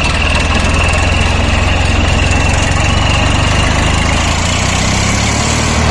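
Swaraj 855 tractor's three-cylinder diesel engine running steadily at a fast idle, with a thin high whistle from a dummy turbo whistle fitted in the exhaust silencer. The whistle is clearest at first and fades in the second half.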